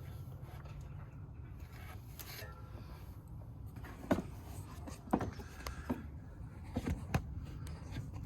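A few sharp knocks and clicks as a serpentine belt is worked back into line on its pulleys by hand, over a steady low hum.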